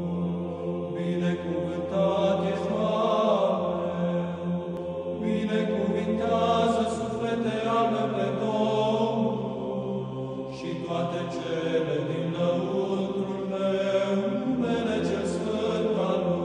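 Background music: a choir of low voices chanting, with a low note held steadily beneath the melody; the held note shifts pitch about seven seconds in and again near the end, as in Orthodox church chant.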